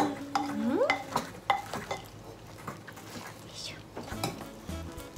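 Wooden rice paddle stirring and scraping freshly cooked rice in a clay rice pot, with scattered light knocks of the paddle against the pot.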